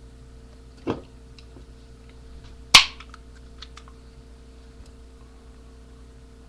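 A Budweiser beer being cracked open: one sharp pop with a short trailing hiss nearly three seconds in, after a softer knock about a second in, followed by a few light clicks.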